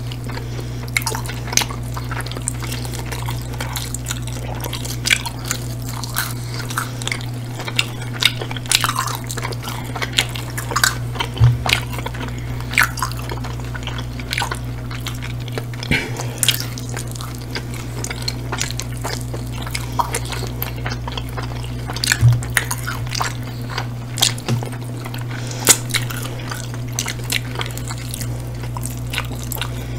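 Close-miked wet chewing, biting and lip-smacking of people eating chicken wings and pizza, full of quick sharp wet clicks, over a steady low hum.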